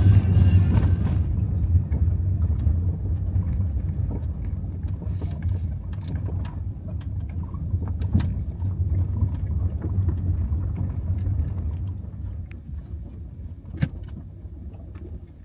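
Toyota Prius driving, heard from inside the cabin: a low road-and-tyre rumble that fades steadily as the car slows down, with a few light clicks and ticks over it.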